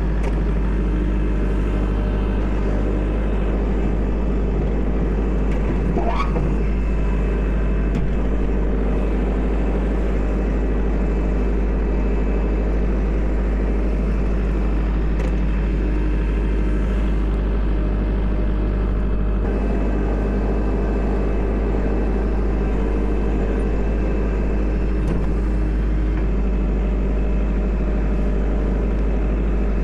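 Kubota L4701 tractor's four-cylinder diesel engine running steadily while it pushes snow into a windrow. A short rising whine comes about six seconds in.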